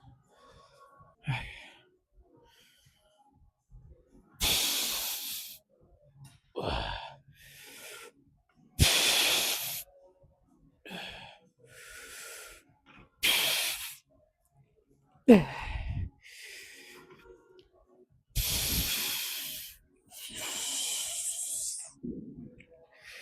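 A man's hard, forceful exhalations through the mouth, about nine loud breaths a second or two apart while straining through a heavy lifting set; one or two carry a short falling grunt.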